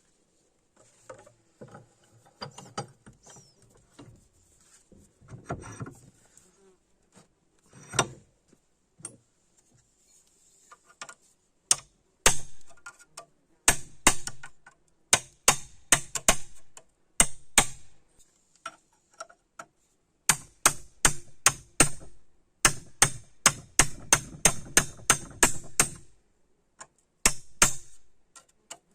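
Hammer striking steel in runs of sharp, ringing blows, several a second, after a stretch of lighter clicks and handling of metal.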